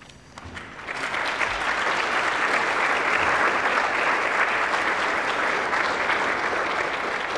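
Audience applauding; the clapping builds up over the first second and then holds steady.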